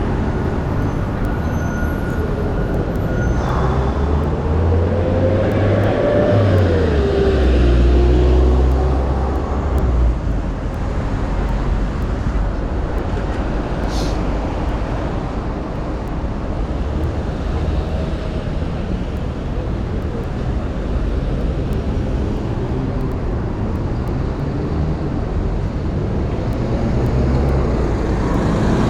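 Street traffic noise. A motor vehicle passes close about five to ten seconds in: its low rumble swells and its engine note rises, then falls, over a steady hum of city noise.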